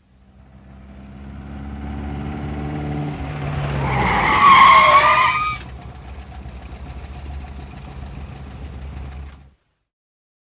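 A 1959 car with a worn 1.5-litre engine approaches, its engine note growing louder, then pulls up with a loud wavering brake squeal about four to five and a half seconds in. The engine then ticks over steadily at idle until the recording cuts off near the end.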